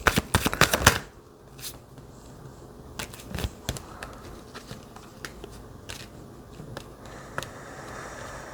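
Tarot cards being shuffled: a quick run of card flicks in the first second, then scattered single card taps and slides.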